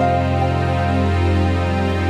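Background music with long held notes over a steady low drone.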